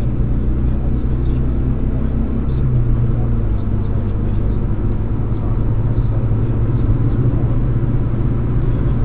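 Steady low rumble of a car driving at motorway speed, engine and tyre-on-road noise heard from inside the cabin.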